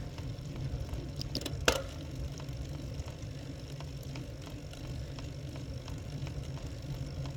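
Steady low rumble of wind and road vibration on a bicycle-mounted camera riding over cracked asphalt. A single sharp click comes nearly two seconds in.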